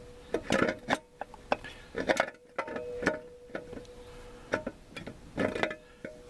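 Metal transmission parts clinking and knocking as the 4L60E low roller clutch housing is lifted out of the case and handled: a series of irregular sharp strikes with brief metallic ringing, over a faint steady hum.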